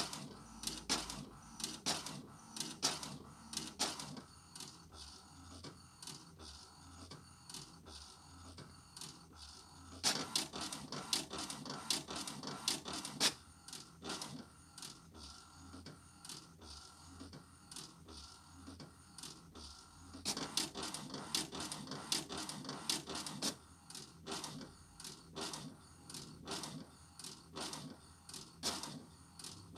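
HP Deskjet 1050 inkjet printer printing: a rapid, uneven run of mechanical clicks and whirrs from the carriage and paper feed, with two busier, louder stretches about ten and twenty seconds in.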